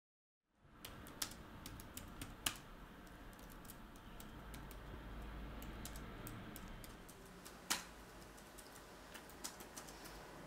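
Irregular keystrokes on a laptop keyboard, a few of them sharper and louder taps, over a low steady room hum; the sound starts about half a second in after a silent cut from black.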